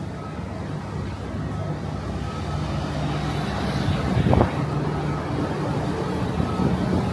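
Airport transfer bus running, its engine a steady low drone that slowly grows louder, with a single knock about four seconds in.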